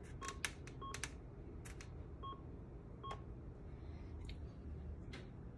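BioMeridian MSA21 testing unit giving four short electronic beeps in the first three seconds, among scattered light clicks.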